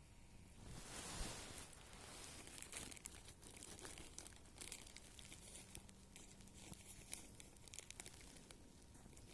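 Faint crinkling and crumpling of dry material being handled, with a louder rustle about a second in and scattered small crackles after it.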